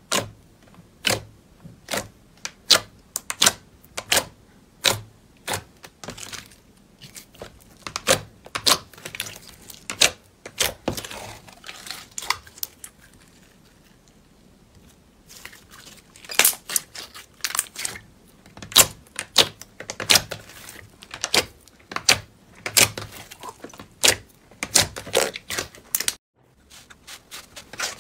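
Clear green jelly slime being pressed, patted and stretched by hand, giving sharp wet pops and clicks about once or twice a second. The pops fall quiet for a couple of seconds midway, then come thick and fast; they stop briefly near the end before softer squishing starts up.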